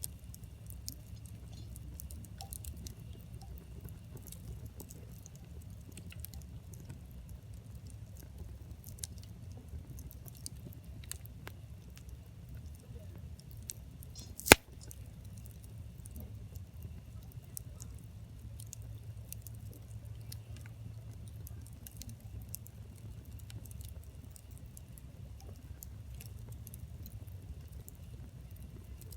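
Wood campfire crackling: scattered small pops and snaps of burning firewood over a low steady rumble, with one loud sharp pop about halfway through.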